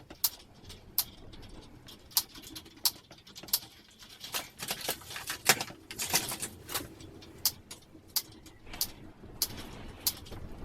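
Wire cutters snipping through chicken wire strand by strand, a sharp click with each cut, irregular, about one or two a second, with the loose wire mesh rustling between cuts.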